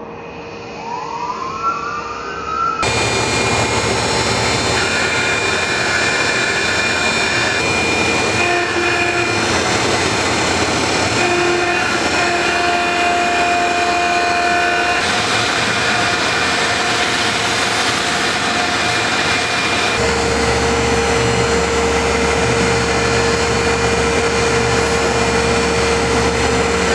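Tormach CNC mill's spindle winding up with a rising whine, then a carbide end mill roughing G10 fiberglass laminate: loud, steady cutting noise with steady tones over the dust collector's rush. The spindle begins to wind down with a falling whine right at the end.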